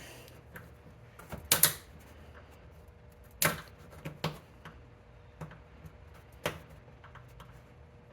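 Scattered sharp clicks and taps of a small pick and fingers working plastic push-pin retainer clips out of a car's wheel-well liner, the two loudest about a second and a half and three and a half seconds in.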